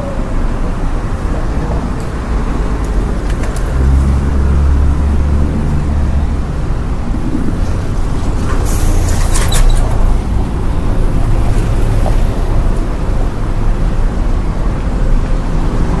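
Street traffic: a continuous rumble of passing motor vehicles. A vehicle's engine rumble swells about four seconds in, and a short hiss sounds around nine seconds in.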